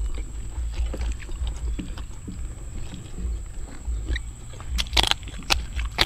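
Close-up chewing and mouth sounds of people eating, over a low rumble, with a sharp crunching bite about five seconds in and a smaller one just after.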